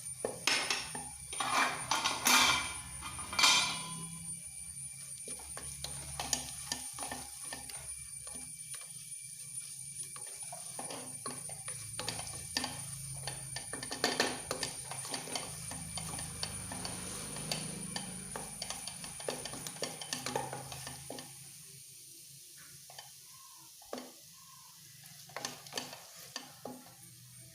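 A spoon stirring and scraping a spice paste in a pan of hot coconut oil, with a light sizzle, as the spice powders fry. There are several loud knocks of the spoon against the pan in the first few seconds, and the stirring grows quieter near the end.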